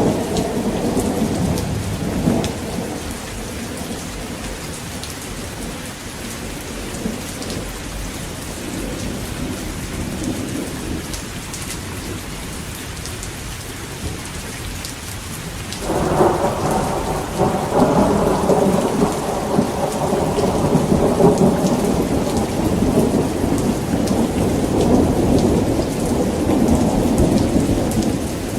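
Heavy rain falling steadily in a thunderstorm. A rumble of thunder fades out in the first few seconds, then about halfway through a sudden loud peal of thunder breaks and rolls on for more than ten seconds.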